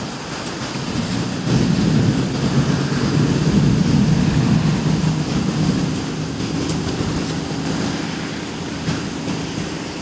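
Rolling thunder: a low rumble that swells about a second and a half in and dies away over several seconds, over a steady rush of wind.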